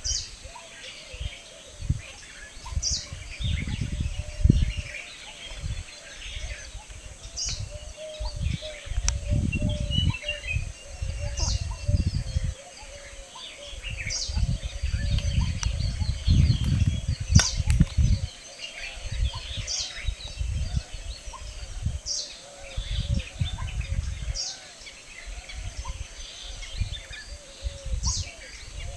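Wild birds calling in open country, one repeating a short high chirp about every two seconds among softer chatter. Irregular low gusts of wind rumble on the microphone come and go and are the loudest sound.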